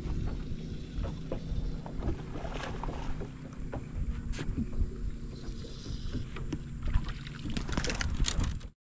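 Outdoor ambience on a bass boat's deck: wind and water noise with a low steady hum and scattered light knocks and clicks from the angler working the rod. The sound cuts off suddenly near the end.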